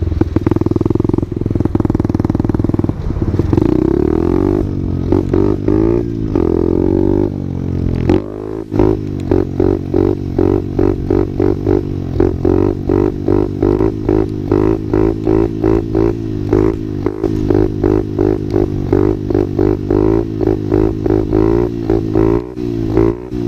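A 50cc pit bike engine running: a steady, even note for the first several seconds, then from about a third of the way in a quick, regular pulsing of the note, two to three times a second, that carries on to the end.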